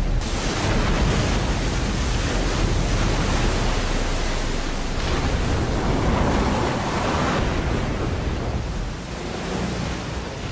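An airliner hitting and skidding along river water: a loud, steady rush of spray and water noise that comes in abruptly at the start and eases off near the end.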